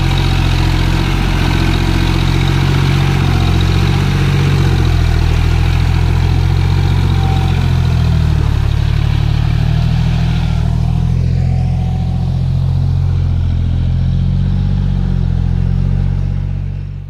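John Deere tractor's diesel engine running steadily under load as it drags a puddling cultivator through a flooded paddy field on cage wheels. The sound fades out at the very end.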